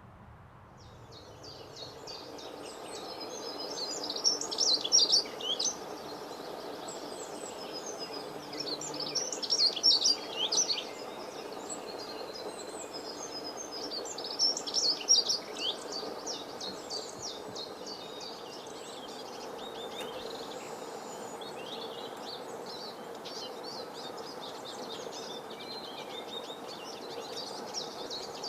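Songbirds singing: rapid high chirps and trills, fading in at the start and peaking in three louder bursts, over a steady background noise.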